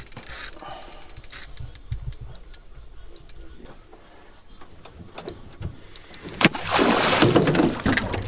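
Scattered clicking from fishing reels being cranked down on a hooked alligator. About six and a half seconds in, a sharp knock is followed by loud splashing as the alligator thrashes at the surface.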